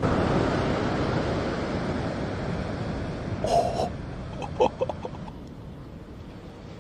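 Steady rushing wind and surf noise that slowly fades, with a few short, high squeaky calls about halfway through.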